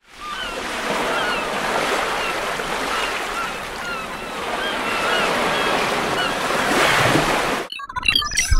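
Steady wash of ocean surf, with short high chirps scattered over it. It cuts off abruptly near the end and gives way to sharper tonal, clicking sounds.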